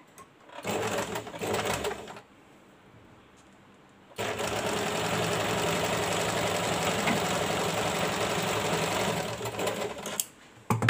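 Electric domestic sewing machine stitching layered fabric strips together: a short burst of about a second and a half, a pause, then a steady run of about six seconds that stops near the end. Two sharp clicks follow just before the end.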